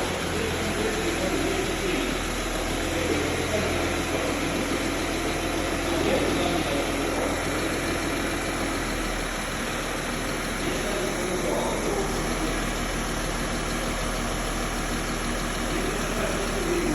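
Volkswagen Touareg engine idling steadily, left running during a full automatic-transmission fluid change.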